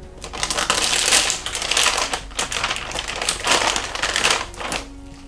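Thin plastic overwrap crinkling loudly as it is opened and a peritoneal dialysis solution bag is pulled out of it. The crackle stops shortly before the end.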